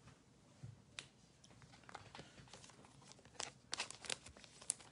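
Faint crinkling of a foil trading-card pack wrapper and light clicks of cards being handled, with a quick run of crinkles about three and a half seconds in and a sharp click just after.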